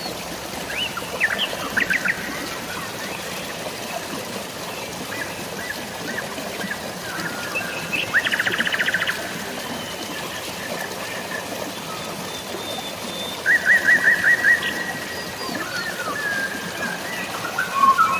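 Several small birds chirping and trilling over a steady hiss of rain and running water, with short rapid trills about eight seconds in and again near fourteen seconds.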